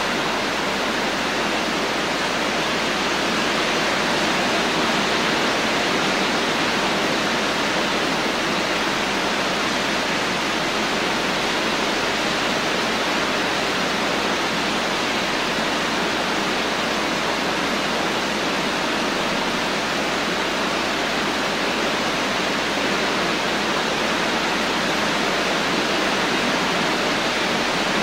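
Steady rain, an even, unbroken hiss with no separate drops, thunder or changes in level.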